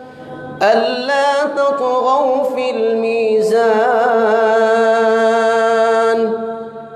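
A male imam chanting Quran recitation through a microphone. He holds one long, ornamented melodic phrase, wavering in pitch, which starts about half a second in and fades out near the end.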